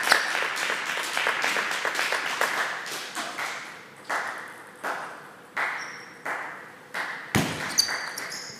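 Table tennis rally: the ball clicking off rackets and table in turn, about one hit every three-quarters of a second, each hit echoing in a large sports hall. A dense patter of clapping fills the first few seconds.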